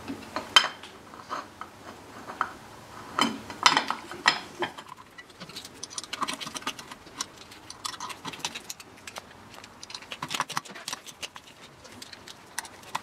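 Small metal clutch parts clinking and clicking as heavy-duty springs, the pressure plate and its bolts are fitted to a Kawasaki ZX7-R's wet multi-plate clutch: a few sharp clinks in the first few seconds, then a long run of light, quick ticks.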